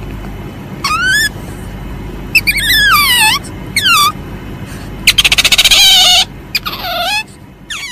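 Palm civet (musang) calling: a series of short squealing calls, most of them falling in pitch. About five seconds in comes a loud, fast chattering burst lasting just over a second, the loudest part. A steady low hum runs underneath.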